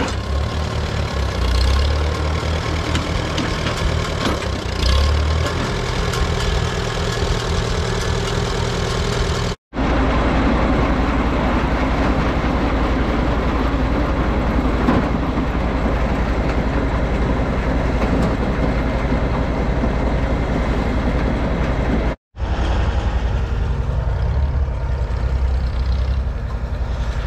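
Farmall B tractor's engine running steadily with a low, even pulse, mixed with farm machinery noise. The sound cuts out abruptly twice for a split second.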